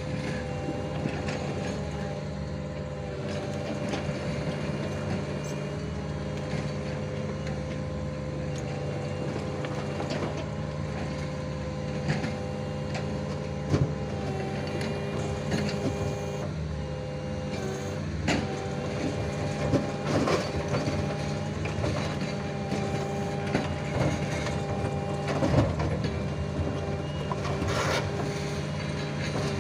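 Mini excavator's diesel engine running with a hydraulic whine that steps up and down in pitch now and then as it works, and a few sharp metal knocks.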